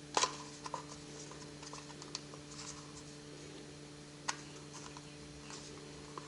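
Light clicks, taps and rustles of small parts being handled, with a sharp click just after the start and another about four seconds in, over a steady low hum.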